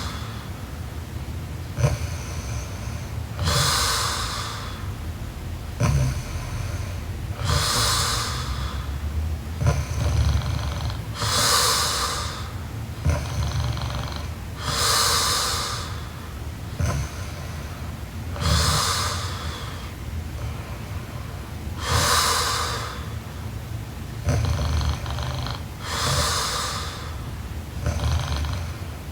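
A young woman snoring in her sleep, with slow, even breaths about every three and a half to four seconds. Each breath carries a low snoring rumble and airy breath noise.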